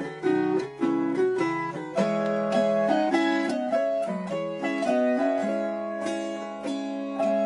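Instrumental acoustic music of plucked strings, guitar or mandolin, picking a quick melody of sharply struck notes over a steady lower line.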